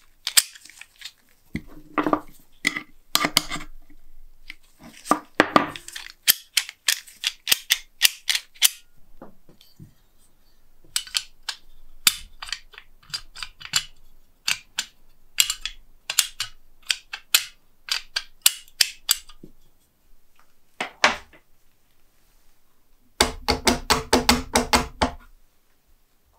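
Restored antique rim lock being worked by hand: runs of sharp metallic clicks and snaps from its bolt and lever mechanism as the key is turned and the bolt thrown back and forth. A denser clattering run comes near the end.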